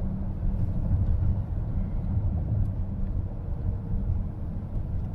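Steady low road and tyre rumble inside the cabin of a moving car.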